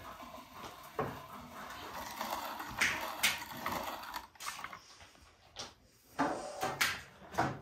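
Hand-cranked metal grinder grinding grain into meal: a gritty crunching with small mechanical clicks. About three seconds in this gives way to a string of short, separate rustles and scrapes.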